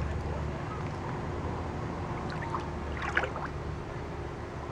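Water sloshing in a shallow inflatable pool as dogs wade in it, with a short splash about three seconds in, over a steady low hum.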